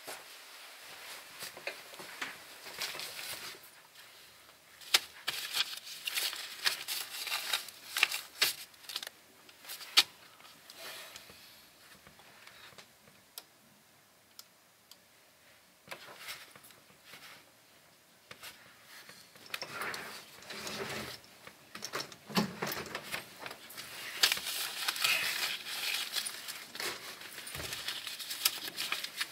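Paper banknotes rustled and crinkled by hand, with small sharp clicks and knocks, in two busy spells with a quiet pause in the middle.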